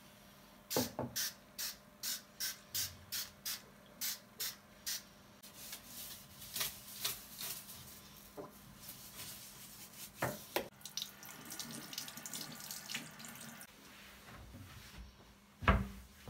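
A spray bottle squirted about ten times in quick succession, a short sharp hiss each time. Then a longer stretch of uneven water and wiping noise, and a single loud thump near the end.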